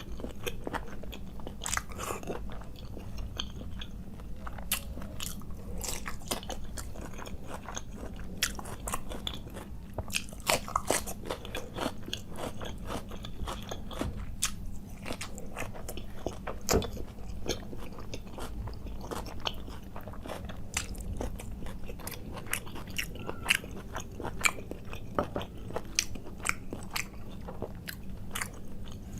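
Close-miked chewing and biting of food, with many irregular crunchy clicks and wet smacks, over a faint steady low hum.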